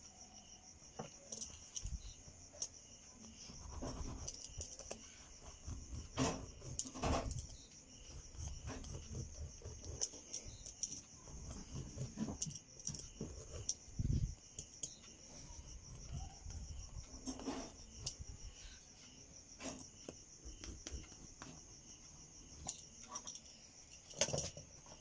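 Soft rustles and scrapes of tailor's chalk and hands moving over folded blouse cloth, with scattered light taps and clicks. Behind them, a steady high insect trill.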